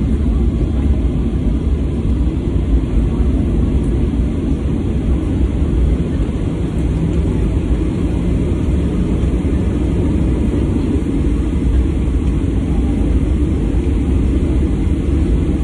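Cabin noise of a Boeing 737-800 taxiing, heard from a window seat beside its CFM56-7B engine: a loud, steady low rumble.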